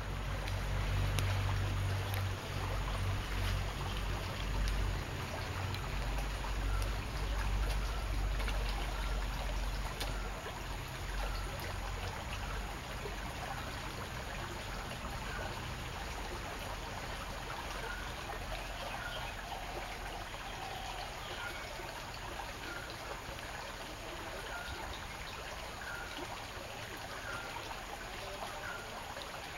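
Shallow river running and trickling over its bed. A low rumble sits under the water for the first dozen seconds, and faint short high chirps repeat about once a second through the second half.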